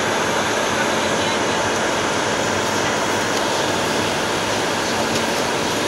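Steady cockpit noise of a Bombardier Global 6000 business jet in flight: an even rush of airflow with a faint low steady hum underneath.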